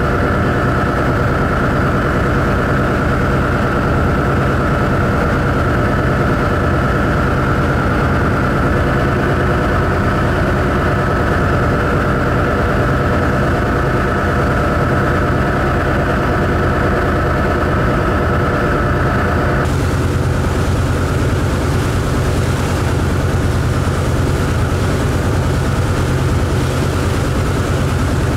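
Ferry engines running steadily under way, a deep even drone with a steady higher whine over it. About two-thirds in the whine drops away and the rush of water churning along the hull comes up under the drone.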